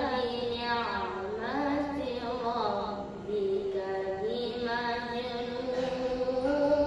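A boy reciting the Quran in the melodic tilawah style, one voice with no accompaniment. For the first three seconds it runs through quick wavering ornaments that rise and fall; it dips lower about three seconds in, then holds long steady notes.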